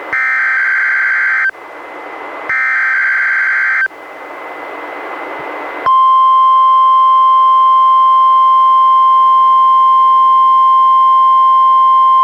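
NOAA Weather Radio emergency alert broadcast: two short, buzzy bursts of the SAME digital header with radio hiss between them, then, about six seconds in, the steady 1050 Hz warning alarm tone sounding for a test.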